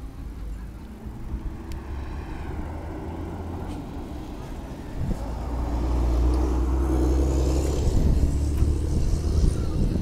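Outdoor street noise: a low rumble of traffic and wind, getting louder about halfway through.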